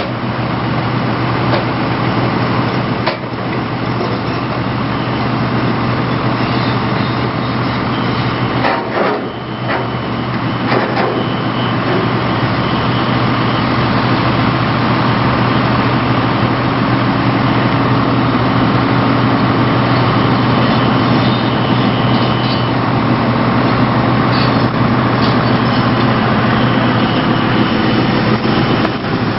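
Excavator-mounted hydraulic vibratory sheet-pile hammer working, a loud, steady machine hum over the excavator's engine, with a few brief knocks about three seconds in and again around nine to eleven seconds.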